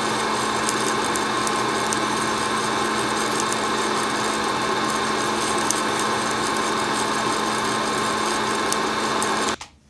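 Fresh Roast SR540 hot-air coffee roaster: steady fan noise with a low hum, over which coffee beans in second crack give scattered sharp crackles, like milk added to Rice Krispies or crushing paper. It cuts off suddenly near the end.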